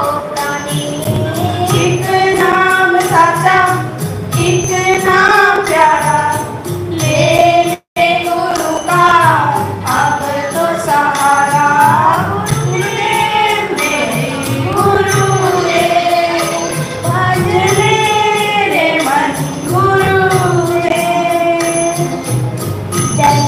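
A boy singing a devotional bhajan into a microphone over accompaniment with a steady percussion beat. The sound cuts out for a moment about eight seconds in.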